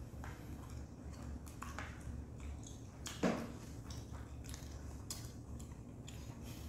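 Eating at the table: scattered clicks of chopsticks against dishes and chewing, over a low steady hum, with one louder short knock about three seconds in.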